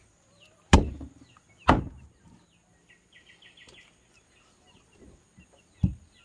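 Large knife chopping through a big fish on a wooden chopping block: three sharp chops, two about a second apart near the start and one near the end.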